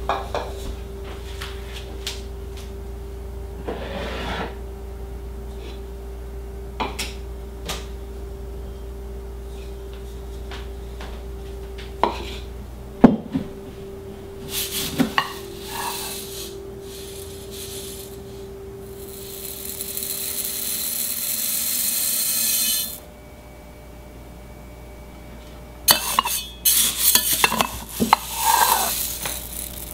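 Wheat berries being handled with a metal scoop in a glass bowl: scattered clinks and knocks of scoop on glass, a steady rising hiss of grain pouring that stops abruptly, then a rattling cluster of kernels near the end.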